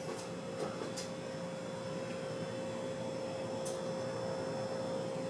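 Faint steady electrical hum, one even tone, under quiet room hiss, with a few light clicks.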